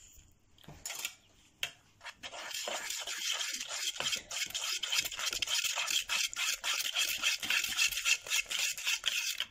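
Flat wire whisk beating a thick flour, icing sugar and egg-white batter in a plastic measuring jug: rapid scratchy strokes of the wires against the jug, starting about two seconds in after a couple of light clicks.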